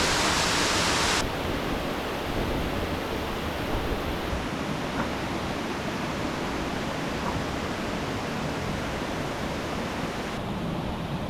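Steady rush of flowing river water, with the level dropping suddenly about a second in and again slightly near the end.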